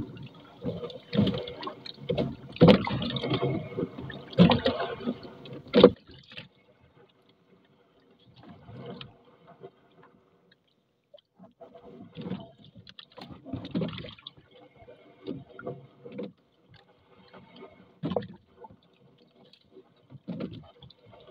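A wet fishing net being hauled hand over hand into a small outrigger boat, with irregular rustling, splashing and knocks against the hull. It is busiest and loudest over the first six seconds, goes almost quiet for a few seconds, then resumes as softer scattered handling noises.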